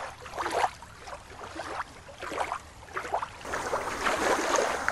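Shallow water lapping and sloshing at the water's edge, with faint irregular splashes.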